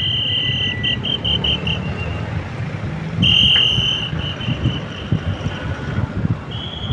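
Road traffic noise with wind on the microphone. A shrill, high whistle-like tone sounds three times over it: a long note that breaks into short pips at the start, again about three seconds in, and once more near the end.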